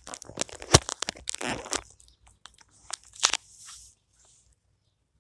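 Handling noise: irregular rustling and crackling, with sharp clicks a little under a second in and again past three seconds, as a plastic brick model and the phone are moved about against fabric. It dies away for the last second or so.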